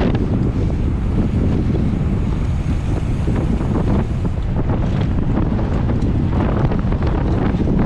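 Wind buffeting the microphone of a camera riding along on a mountain bike at race speed: a loud, steady low rumble with a few small clicks scattered through it.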